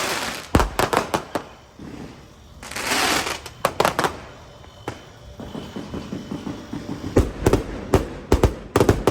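Fireworks going off: sharp bangs in quick clusters, one near the start, one around four seconds in, and a dense run near the end. A burst of hiss comes about three seconds in.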